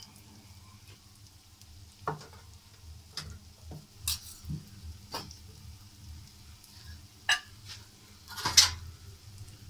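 Wooden spatula stirring and scraping frying masala in a black kadai, with scattered knocks against the pan, the loudest near the end, over a faint sizzle.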